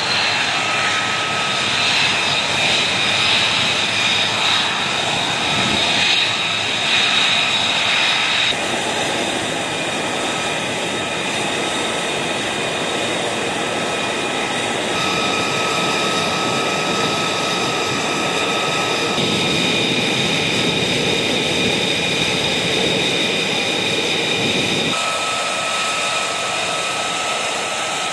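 F-35B Lightning II jet engine running on the ground while taxiing: a steady high whine over a broad rushing roar. The tone and loudness change abruptly several times.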